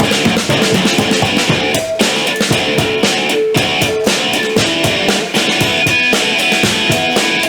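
A rock band playing live: a drum kit hitting steadily under electric guitar.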